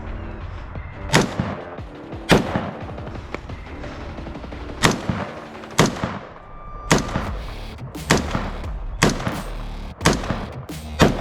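Semi-automatic AR-15 rifle in 5.56 (a Radical Firearms RF-15) fired about ten times, roughly one shot a second at uneven spacing, each a sharp crack with a ringing tail. A background music track runs underneath.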